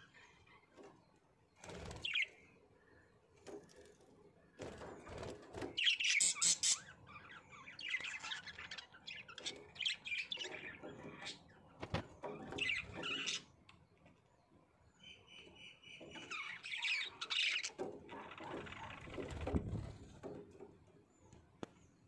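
Budgerigars chirping and chattering in irregular bursts, with short pauses between them.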